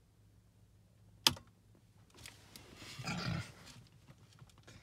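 A sharp click about a second in, then a short, rough vocal noise from a person a couple of seconds later, over the steady low hum of an idling car.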